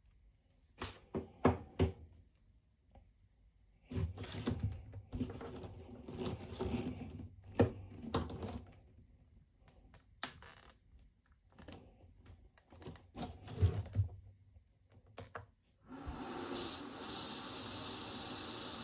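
Clicks, taps and rustling as a small device is handled. About three-quarters of the way through, a steady rush of air with a faint whine starts suddenly and holds: the travel CPAP's blower running.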